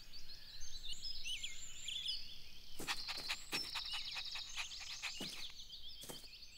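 Small birds chirping and twittering as a steady garden background, with a few short clicks or taps in the second half.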